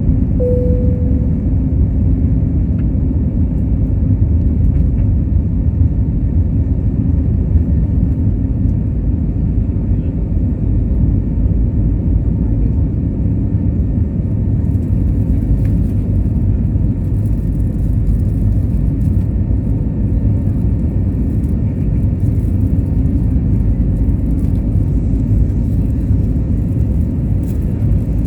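Airbus A320neo cabin noise: a steady, loud low rumble of engines and airflow heard from inside the passenger cabin. A brief single tone sounds just after the start.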